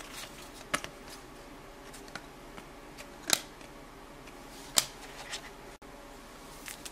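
Trading cards being sorted and handled: scattered light clicks and taps of card stock, with sharper ones about three and a half and five seconds in.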